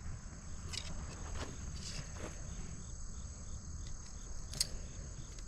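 Steady high-pitched insect chorus, with a few soft rustles and clicks, the sharpest about four and a half seconds in.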